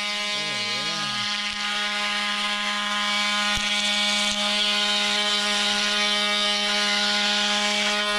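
Handheld electric power tool cutting into balsa wood core, running steadily at an even pitch. Near the end it is switched off and its pitch falls as it spins down.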